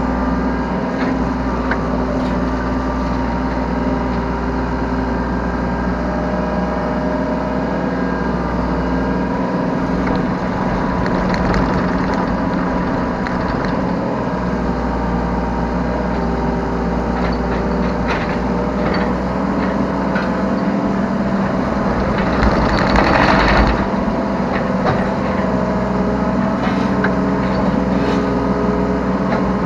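Yanmar B3 Sigma 3-ton mini excavator's diesel engine running steadily under load while the machine digs and loads, with scattered short knocks. A louder rushing noise lasts about two seconds, a little after the middle.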